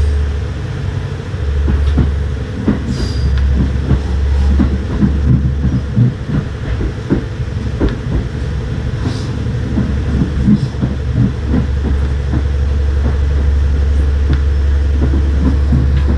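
Diesel limited express train (the Hida) pulling into a station: a steady low engine drone with many irregular wheel clicks over rail joints and points.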